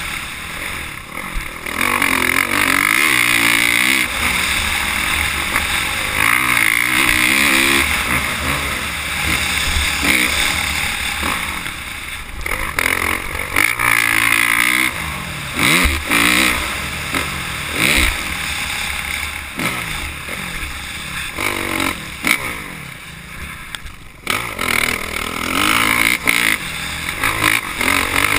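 Motocross bike engine revving hard and easing off again and again as the rider accelerates out of turns and over jumps, heard from a camera on the bike. The revs drop off briefly near the end before picking up again.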